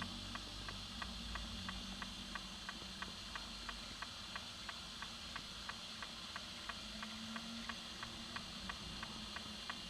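Steady, evenly spaced ticking, about three ticks a second, over a constant hiss and a low hum.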